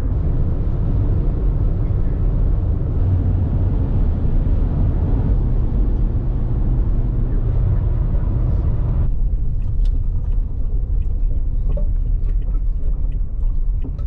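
Road and tyre noise inside a moving car: a steady low rumble with a hiss over it. About nine seconds in the hiss drops away, leaving the rumble with scattered faint ticks.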